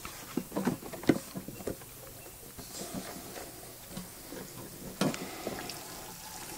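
Fuel container and generator being handled: a cluster of light knocks and clicks in the first two seconds, then a sharper knock about five seconds in.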